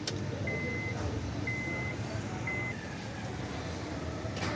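Three short, high electronic beeps about a second apart, the third cut short, over a low steady hum, with the ignition switched on. A sharp click near the end.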